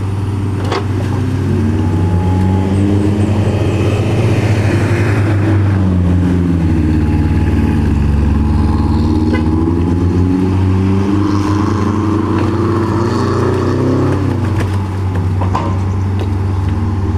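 A heavy vehicle's diesel engine running close by, its pitch sinking slowly over several seconds and then climbing again.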